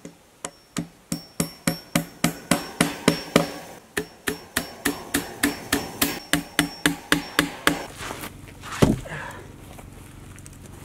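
A hammer driving fencing staples to fasten welded-wire fencing down to a log: quick, even blows, more than three a second, with a brief pause partway and a stop about three-quarters of the way in. One heavier thud follows near the end.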